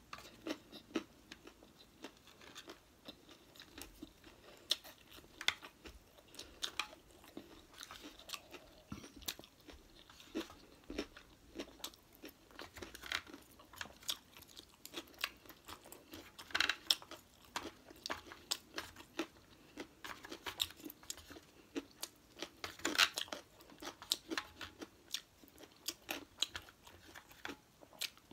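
A person chewing sushi rolls close to the microphone, with many short wet mouth clicks throughout. A few louder ones come about halfway through and again later.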